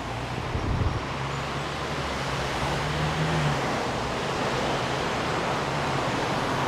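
Street traffic noise: a motor vehicle's engine hum and tyre rush, building up over the first second and then holding steady.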